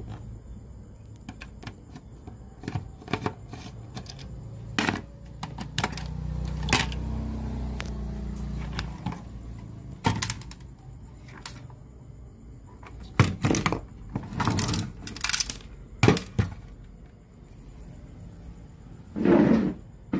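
Irregular clicks, knocks and thuds of an Aiwa CS-J21 cassette radio being handled and worked on, with a low hum lasting a few seconds in the middle.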